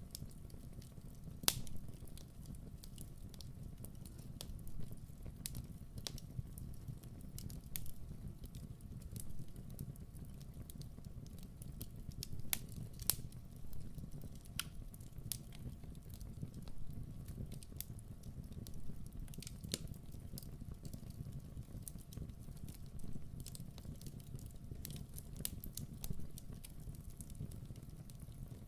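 Wood fire burning in a fireplace: a steady low rumble of the flames with irregular crackles and pops from the burning logs, a sharper pop about a second and a half in and a couple more near the middle.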